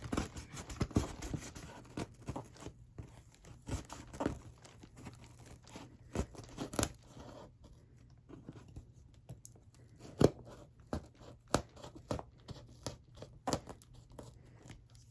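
A cardboard shipping box being torn open by hand, its cardboard and tape ripping in a string of irregular rips, scrapes and sharp snaps.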